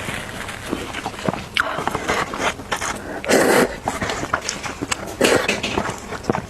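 Close-miked slurping and chewing of instant noodles, with two louder slurps, one about halfway through and one near the end, and small wet mouth clicks between.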